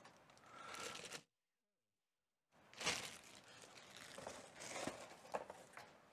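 Plastic wrapping crinkling and tearing as stainless-steel cocktail shaker parts are unwrapped by hand, with a few light knocks. There is a dead-silent gap of about a second and a half starting about a second in.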